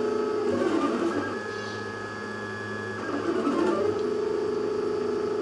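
3D printer's stepper motors singing in steady tones as the print head traces a spiral-vase column. The pitch changes about half a second in and returns to the first pattern a little after three seconds in, as the head's moves change direction and speed.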